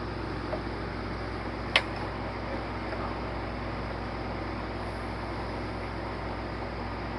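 Steady machine hum with one sharp click a little under two seconds in.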